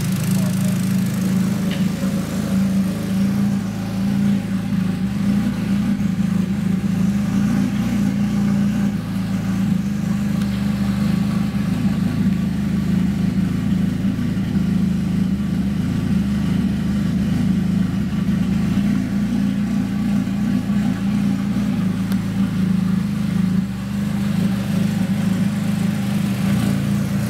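Nissan SR20DET turbocharged four-cylinder engine running at a steady speed, with a knock from the cylinder head that comes and goes. The owner cannot trace the knock: new lifters, cams and rocker arms have not cured it, and when it occurs the engine stumbles as if on three cylinders.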